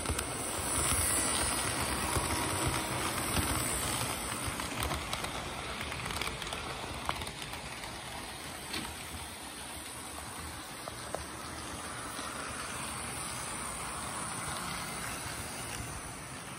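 HO scale model train running on its track: a steady whir of the locomotive's motor and wheels rolling on the rails, with a few light clicks. It is loudest in the first few seconds as the diesel locomotive passes close.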